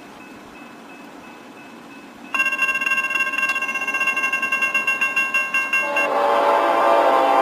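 Faint dinging of a railway crossing bell, then a locomotive's air horn blows suddenly about two seconds in as a chord of steady tones. About six seconds in, the horn changes to a louder, fuller chord.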